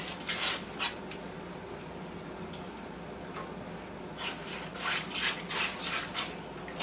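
A flat whisk scraping and stirring milk gravy in an enameled cast-iron skillet: a few strokes at first, then milk poured in from a plastic jug in the quieter middle stretch, then a run of stirring strokes again near the end.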